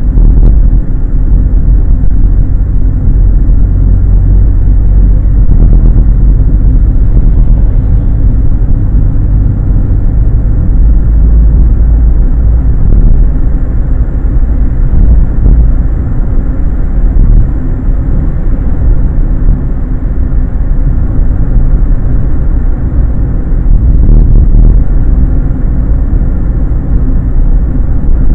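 Fiat Punto driving along, its engine and road noise making a loud, steady low rumble heard from inside the cabin.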